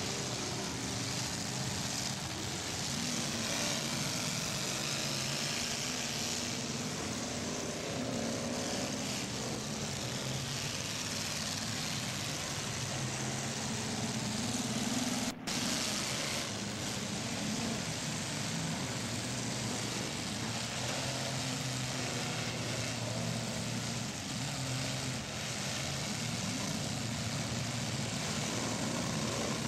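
Several demolition derby cars' engines running and revving over one another as the cars push and ram in the pit, the pitch rising and falling. The sound drops out for an instant about halfway through.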